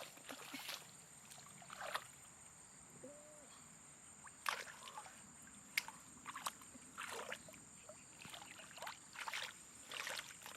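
Shallow water sloshing and splashing in short, irregular bursts, a dozen or so over the stretch.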